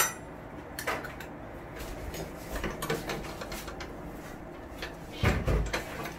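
Small metal clicks and knocks as a diamond cutting blade and its flange are handled and fitted onto an angle grinder's spindle, with a louder thump about five seconds in.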